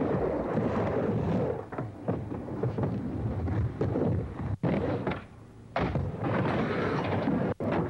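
Skateboard wheels rolling on wooden ramps. The sound drops away for about a second midway, then resumes.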